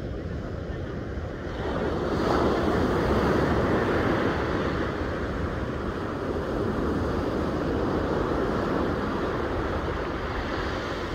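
Surf breaking on a sandy beach, its rush swelling about two seconds in and staying loud, with wind buffeting the microphone.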